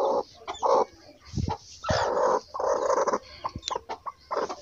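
Broody hen sitting on her eggs, giving about five short, raspy protest calls as a hand is pushed under her: the defensive call of a hen guarding her clutch.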